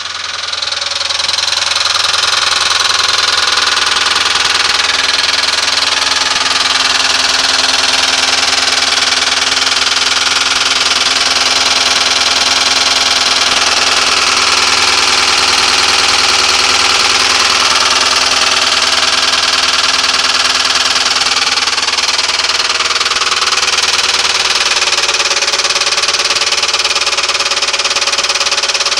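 1996 Ford Crown Victoria's 4.6-litre V8 running with a loud, steady rattling racket from the bell housing, getting louder over the first second or two. The owner is 99.9% sure it is the sign of a cracked flex plate.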